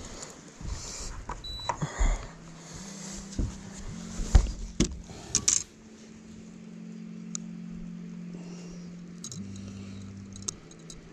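Clattering knocks and rattles of a landing net and fishing gear being handled on a bass boat's deck during the first half, over a steady electric trolling-motor hum that steps in pitch a few times.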